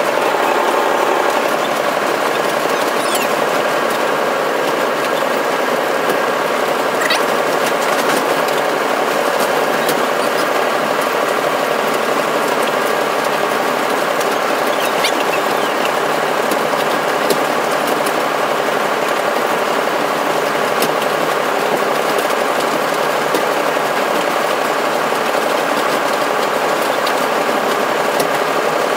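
Locomotive engine running steadily, heard from inside the cab while the train is under way.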